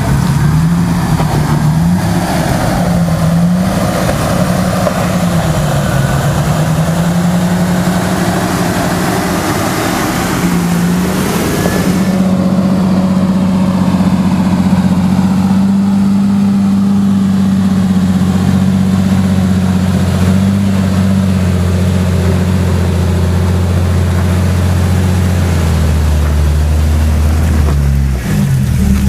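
Jeep Wrangler engines running at low crawling speed on a rocky trail. The revs waver up and down for the first part, then a second Jeep's steadier engine drone takes over about twelve seconds in and shifts in pitch near the end as it comes close.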